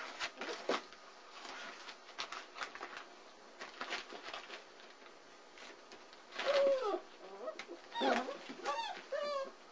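Four-week-old German Shepherd puppies whining and yelping at play: one longer whine about six seconds in, then a few short, arching yelps near the end. Scattered small taps and clicks come before them.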